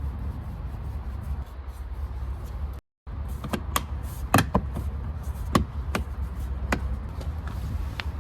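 Irregular sharp clicks and knocks from a BMW E90's interior door handle and door trim being worked on, starting about halfway through, over a steady low rumble.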